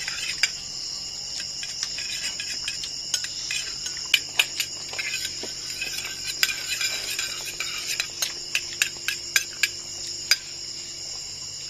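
Crickets chirring steadily, with many short clicks and scrapes of a metal spoon against a small steel bowl, most of them in the second half.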